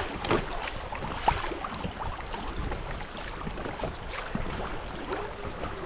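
Water lapping and splashing against a river raft, with scattered small splashes and wind rumbling on the microphone.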